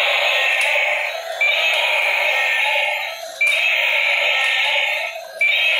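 Electronic roar sound effect from a battery-powered walking dragon toy's small speaker: a harsh, tinny roar repeated in roughly two-second bursts with brief breaks between them.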